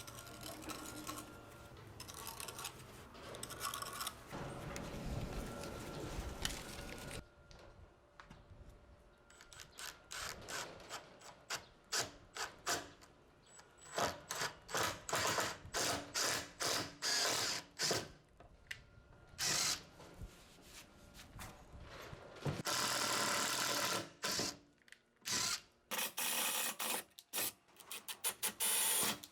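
Handheld power tool run in many short bursts of a fraction of a second each, with one longer run of about two seconds in the second half; quieter mixed work noise comes before the bursts begin.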